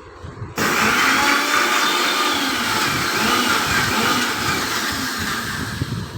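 Electric blender switched on about half a second in, running steadily as it blends milk with sugar and rose essence, easing off a little towards the end.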